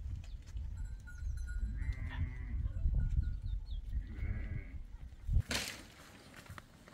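Sheep and goats bleating a few times over a steady low wind rumble on the microphone, with one sudden sharp noise about five and a half seconds in.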